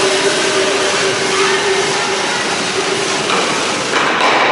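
An ice stock (Eisstock) sliding down the ice rink, a steady grinding noise in the echoing hall, which grows louder near the end.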